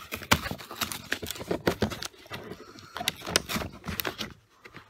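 A boxed tool kit being handled and tipped against a wooden workbench: irregular clicks and knocks from the packaging and the loose parts inside, several a second, easing off near the end.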